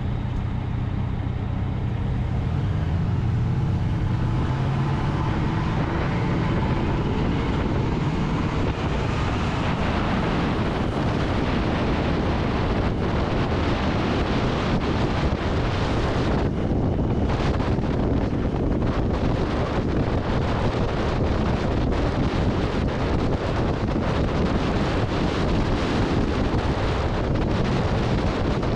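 2021 Yamaha XSR900's inline three-cylinder engine pulling, its pitch rising over the first several seconds as the bike gathers speed. Heavy wind noise on the microphone at road speed then covers it.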